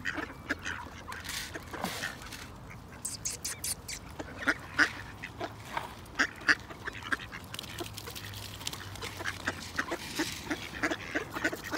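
Mallard ducks calling in short, scattered quacks.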